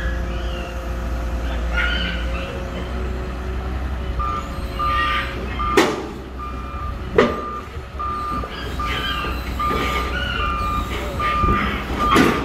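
XCMG EX215C excavator's Isuzu 6BG diesel running under load as it tracks up the trailer's steel loading ramps. About four seconds in its travel alarm starts beeping, about twice a second, and two loud clanks of the tracks on the ramp come around the middle, with another near the end.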